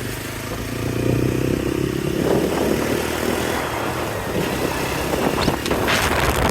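Motorcycle engine running steadily as the bike is ridden, with a few light clatters near the end.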